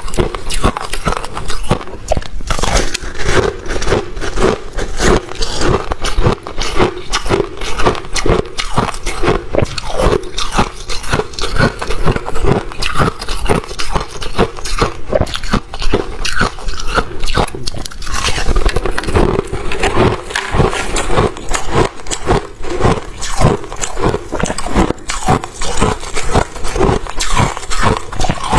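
Close-miked biting and chewing of freezer frost ice: a continuous run of rapid, crisp crunches as the frozen chunks break up between the teeth.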